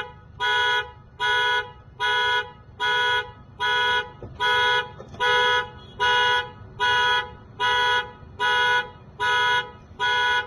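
Car horn of a 2014 Toyota Camry blaring in steady, evenly spaced blasts, a little more than one a second: the car's anti-theft alarm going off after the door was opened without a key.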